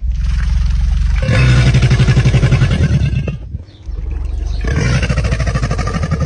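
An animal's loud, rough, engine-like call in two long bouts, each a low, rapidly pulsing buzz, with a short break between them.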